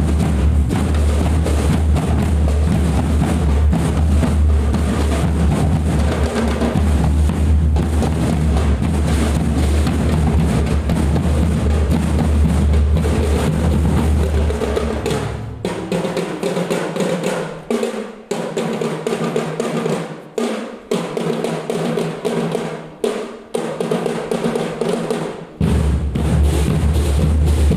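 School drum band playing a marching-percussion cadence, snare and bass drums together. The deep bass drum part drops out a little past halfway, leaving the lighter drums with short breaks, and comes back in near the end.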